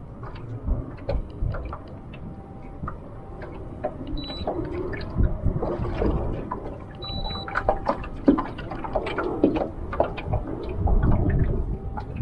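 Choppy, wind-driven waves slapping and gurgling against a small boat's hull, with irregular knocks and a low wind rumble.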